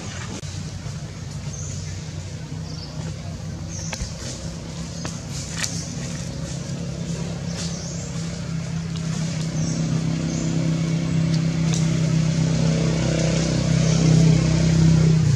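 A motor vehicle's engine hums steadily and grows louder over the second half. Short high chirps recur throughout, with a few faint ticks.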